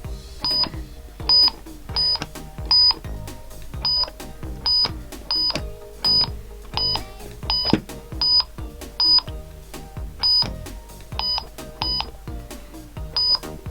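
Tap It game pods beeping as they are tapped: short, loud electronic bleeps, about one a second at uneven spacing, some coming in quick pairs.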